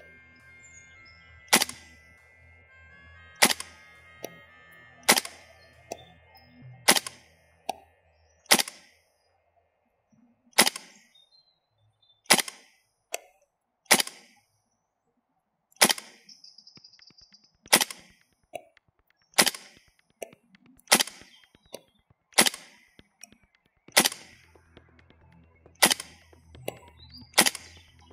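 GHK Steyr AUG gas blowback airsoft rifle firing single shots, each a sharp crack, about one every one and a half to two seconds, some eighteen in all.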